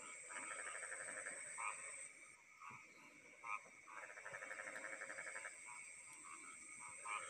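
Frogs calling at night: two long, rapid pulsed trills and short croaks repeating about once a second, over a steady high-pitched insect trill.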